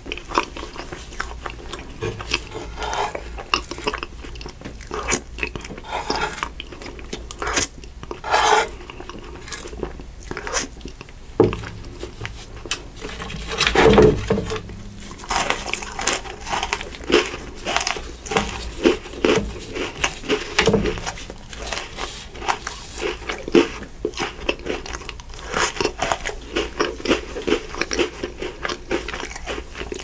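Close-miked eating: repeated bites and crunching chews of chocolate Pocky biscuit sticks, with short crisp snaps throughout and the loudest bite about halfway through.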